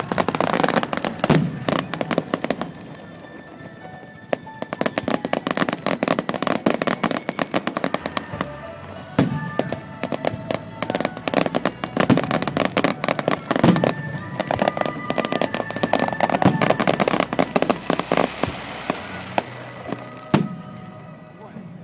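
Fireworks display: aerial shells bursting with deep thumps every few seconds, amid a dense, rapid crackle of many small bursts. Music plays underneath.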